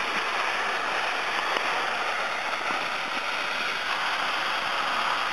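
Hot-air balloon propane burner on the grounded basket blowing a jet of gas that makes a white plume, with a loud, steady hiss.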